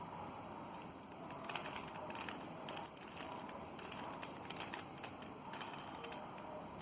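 Plastic Rubik's Cube layers being twisted by hand: a run of quick, irregular clicks and rattles, thickest in the middle.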